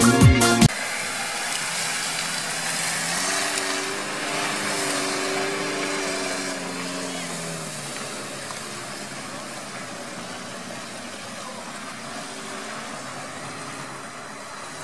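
Lada Niva's engine working as the car crawls through a reed-choked mud bog: it rises in pitch for a few seconds, then eases and slowly fades, over a rough haze of noise. Electronic music cuts off within the first second.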